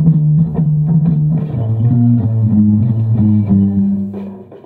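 Five-string electric bass played with the fingers: a low note repeated in an even rhythm, then a moving line of notes that ends on a held note fading out near the end.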